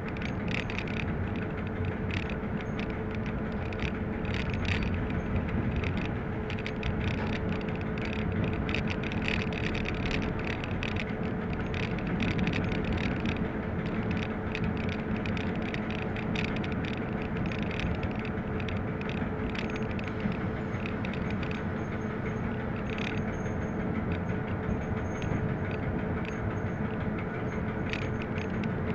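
ČD class 750 'brejlovec' diesel-electric locomotive hauling a heavy freight train, heard from the cab: a steady running drone with a constant hum, and rattles and knocks from the running gear, busier in the first half.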